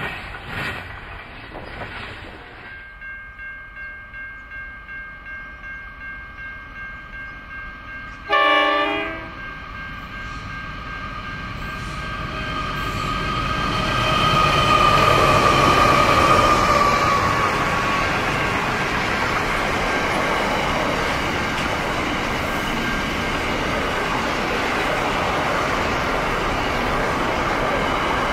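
Freight train passing: the tail of one train rolls by, then a short loud blast of a diesel locomotive's horn about eight seconds in. Pacific National NR-class diesel-electric locomotives then approach and pass, loudest a little past halfway, followed by the steady rumble and clatter of container wagons on the rails.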